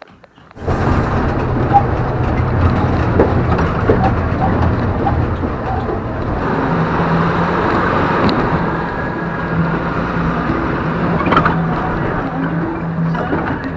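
Bus engine and road noise heard from inside the moving bus: a steady low drone that starts abruptly about half a second in, with a steady hum joining about halfway.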